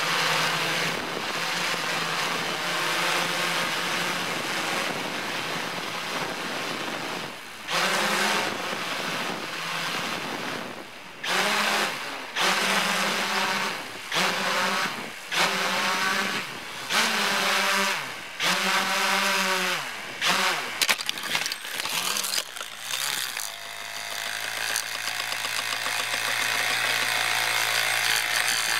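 Hexacopter's brushless motors and propellers humming steadily in flight, then cutting out and surging back again and again, the pitch rising and falling with each surge, as the motors are cut in manual mode and thrown to full throttle in atti mode to force a crash landing during a flyaway. A few sharp knocks follow, then a steady buzz once it is down.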